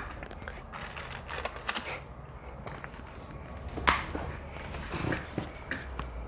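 Small plastic clicks and snaps from a cheap no-brand car cigarette-lighter charger adapter being taken apart by hand, with one sharper crack about four seconds in.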